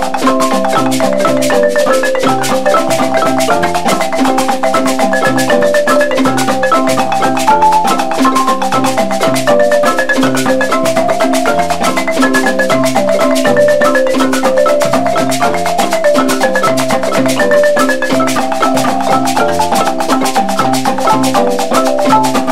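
Zimbabwean-style wooden marimbas played with mallets as an ensemble: a fast, repeating melodic pattern of struck notes in the upper parts over deep bass marimba notes, without a break.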